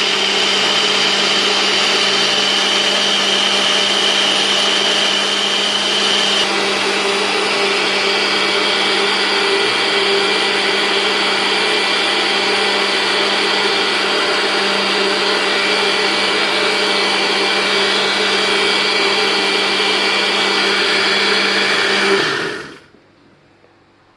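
Bullet-style personal blender running steadily, blending fruit, ice and ice water into a smoothie; its pitch shifts slightly about six seconds in, and it stops abruptly near the end.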